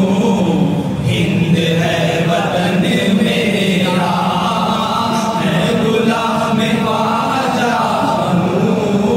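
Man singing an Urdu naat into a microphone in a long, drawn-out melody, with a steady low drone held underneath.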